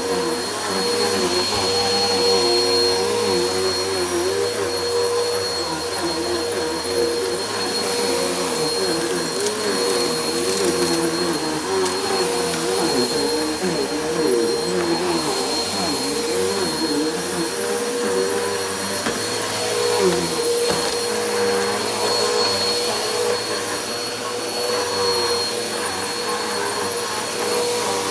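Helix Turbo upright vacuum cleaner running on carpet, a steady motor whine with a high tone over it. Its lower pitch wavers up and down as the cleaner is pushed back and forth across the carpet.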